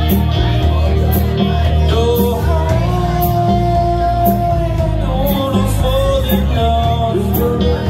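Live rock band playing: electric guitars over a steady drum beat with cymbals struck on the beat. A lead note is held for about two seconds near the middle.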